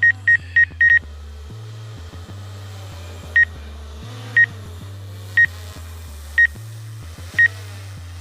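Short, high electronic beeps: a quick run of about four a second that stops about a second in, then one beep every second. Under them runs background music with a deep bassline.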